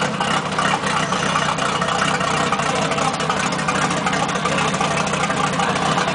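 Four Winns sterndrive boat engine running steadily out of the water, cooled by a garden hose on the lower unit, with the outdrive propeller turning.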